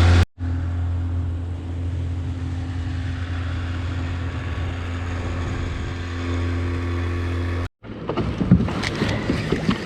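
Small boat's outboard motor running steadily at cruising speed, a constant low hum. Near the end it cuts off suddenly and irregular knocks and rustles follow.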